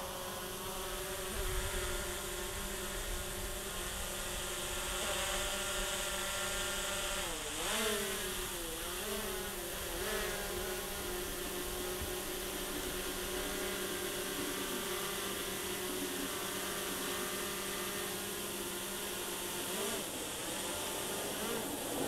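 Small drone hovering, a steady buzz of its propellers that dips and rises in pitch about eight seconds in, then settles again.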